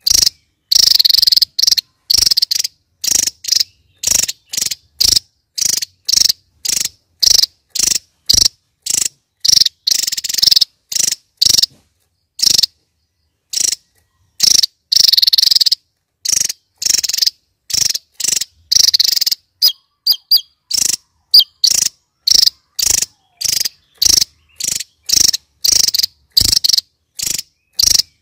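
Javan tesia singing in rapid, high-pitched bursts, about two a second, each short phrase broken off by silence, with one longer pause of about a second and a half near the middle and a few thin whistled notes about two-thirds of the way through.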